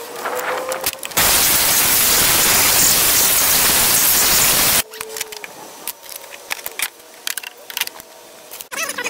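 Compressed air hissing from an air-hose blow gun in one steady blast of about three and a half seconds, starting about a second in and cutting off sharply. It is blowing debris out of the engine's spark plug wells before the plugs come out. Light clicks and taps of handling come before and after the blast.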